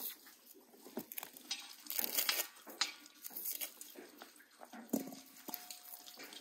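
Onions handled in a metal bowl and peeled by hand: irregular crackling of dry, papery onion skin with a few light knocks.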